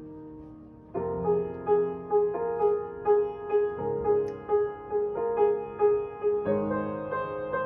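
Upright piano being played: a held chord dies away, then about a second in a new chord sounds with one note struck about twice a second, and the chords underneath change twice.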